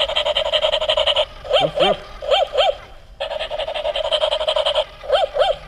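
Kid Connection Walking Pet toy puppy's electronic bark sound through its small speaker, played twice. Each time a steady buzzy whine of about a second and a half is followed by four short yipping barks in two pairs.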